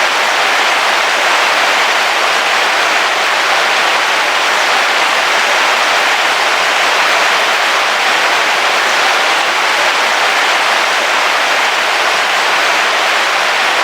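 Heavy rain falling on a car roof, a dense, steady hiss with no break or change.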